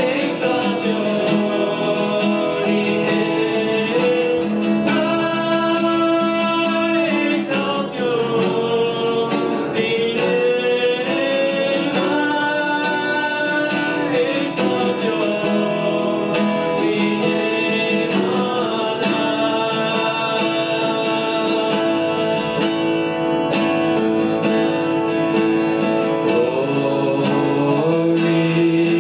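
A live worship song: a man singing into a microphone while strumming an acoustic guitar, accompanied by other instruments.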